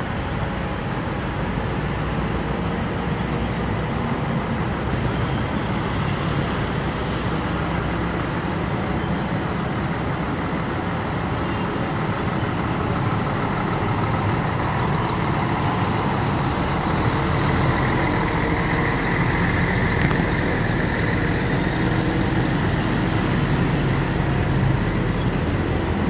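Heavy diesel tractor-trailer trucks hauling railcars running past at low speed, with other road traffic. A steady rumble that grows somewhat louder in the second half as a truck comes close.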